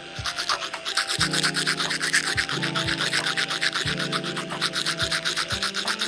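Toothbrush scrubbing back and forth in quick, even strokes, about seven a second, over background music.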